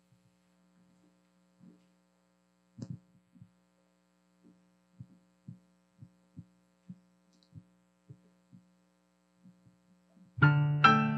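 Soft footsteps on a wooden stage, about two a second, with a single knock about three seconds in, over a faint steady hum. Near the end, piano chords begin loudly.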